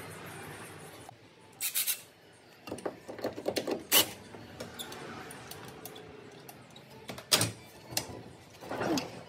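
Hand tools clinking and knocking on metal engine parts around the alternator: a short rapid burst of clicks about two seconds in, a quick run of clicks a second later, then single sharp knocks spread through the rest.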